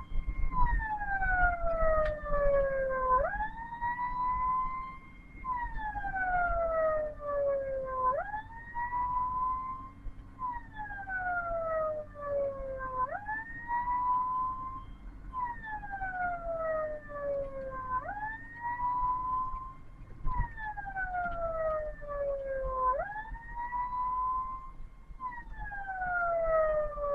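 Ambulance siren wailing: each cycle a quick rise in pitch followed by a slow fall, repeating about every two and a half seconds, over a steady low hum.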